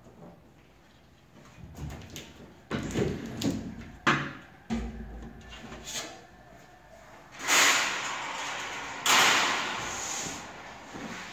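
Thin sheet-metal signs and a screen-printing press being worked by hand: a few knocks and clunks, a dull thump, then two loud scraping slides about a second and a half apart, each fading out.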